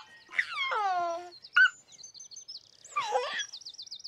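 A baby laughing: a long falling laugh early on and a shorter one about three seconds in, over high chirping birdsong that ends in a fast trill.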